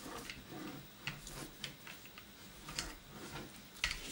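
Irregular light clicks and ticks from an encaustic painting iron being dragged across and lifted off waxed card while the sky is laid in, the sharpest near the end.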